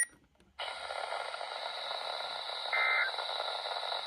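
Weather-radio static hiss, then a short two-tone digital data burst near three seconds in and another beginning right at the end. These are the SAME end-of-message tones that close an Emergency Alert System broadcast.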